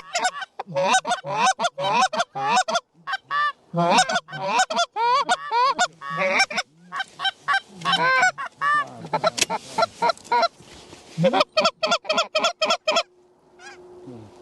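Rapid, overlapping goose honks and clucks, many short notes in quick succession, pausing briefly near the end.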